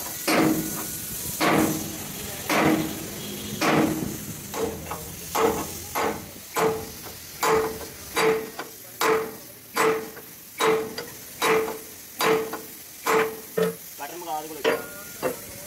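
Hand hammer striking the steel of a truck trailer's frame, over a dozen steady blows about a second apart that quicken a little after a few seconds. Each blow gives a short metallic ring, and the ring is higher in pitch from about four seconds in.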